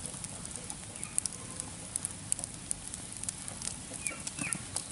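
Wood fire of stacked sticks crackling, with scattered sharp pops over a steady low hiss.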